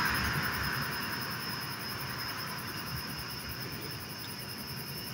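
Night insects, crickets, chirring steadily in a thin high chorus. A broader rushing noise fades away over the first second or two.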